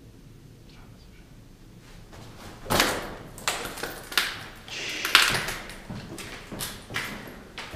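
A quiet stretch, then from about two and a half seconds in a run of irregular knocks and scuffs, roughly one or two a second.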